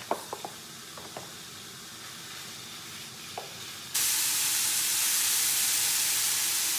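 Minced beef going into a hot frying pan and sizzling loudly. The sizzle starts suddenly about four seconds in, after a faint hiss from the heated pan and a few light clicks.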